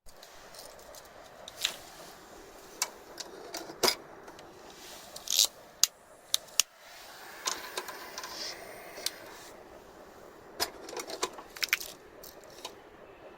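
Irregular light clicks, clinks and knocks of small objects being handled, a few of them sharper, over a faint steady hiss.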